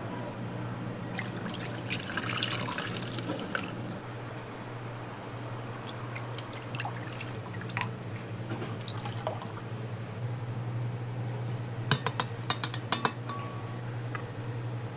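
Dessert being prepared: clinking of glassware and utensils with light pouring and dripping liquid over a steady low machine hum. There is a flurry of small clinks and splashes early on, and a quick run of sharp clicks about twelve seconds in.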